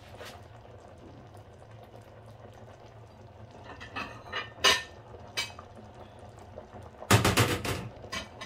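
Sago pearls simmering in a small stainless-steel saucepan with a faint bubbling, after the heat has just been switched off. Now and then pots and utensils clink and knock, with a louder clatter of cookware about seven seconds in.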